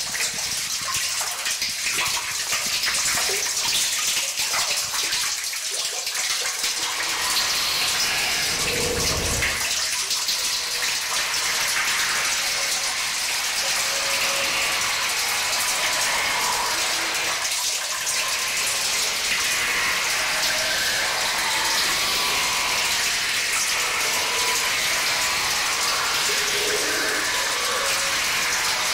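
Live harsh noise music: a steady wall of hissing static, strongest in the high range, like rushing water, with a short low rumble about nine seconds in.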